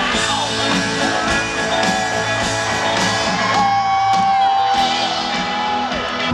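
Live rock music with guitar, played from a festival stage and heard from within the crowd; a long held note sounds over it about midway.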